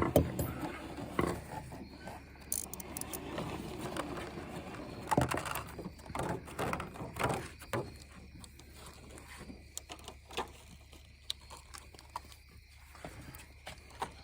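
Scattered clicks, taps and knocks of trimmer parts and hand tools being handled during a tune-up, busier in the first half and sparser later, over a faint steady low hum.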